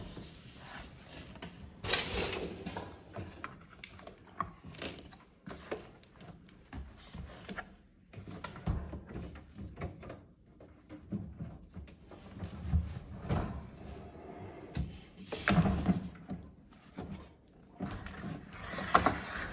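Fisher & Paykel dishwasher drawer tub being worked on its slides in its cabinet chassis: irregular plastic knocks, scrapes and thunks. The louder clatters come about two seconds in and near the end.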